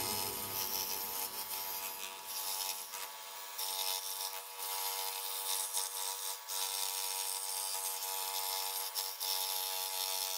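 Scheppach Deco scroll saw running steadily, its reciprocating blade cutting through 9 mm plywood.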